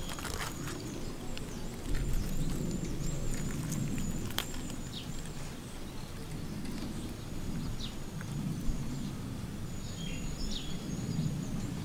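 Outdoor ambience: a thin, high wavering animal call for the first few seconds, then a steadier high call from about seven seconds in, over a low background rumble with a few sharp clicks.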